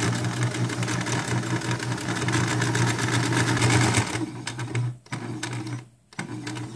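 Domestic sewing machine stitching a basting seam, running steadily at speed, then stopping and restarting in short runs from about four seconds in.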